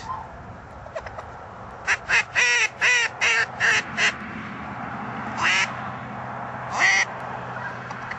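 Duck call blown in a quick run of seven quacks, then two single quacks spaced about a second and a half apart.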